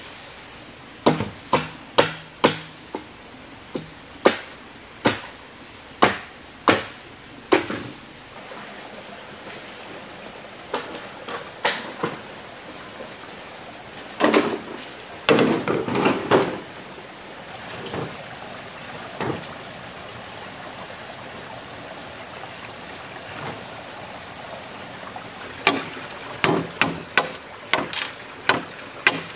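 Repeated sharp strikes of a hand tool on wood, about one or two a second, in several runs with pauses between them.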